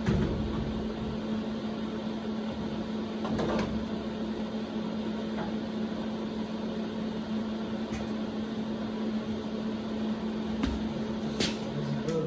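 Electric welder running a weld on a steel crossmember: a steady electrical hum over a continuous hiss, which cuts off suddenly near the end.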